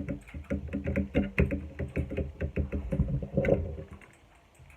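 Ducky One 2 Mini mechanical keyboard with linear Cherry MX Silver switches being typed on quickly: a fast run of key clacks that thins out and goes quiet about four seconds in.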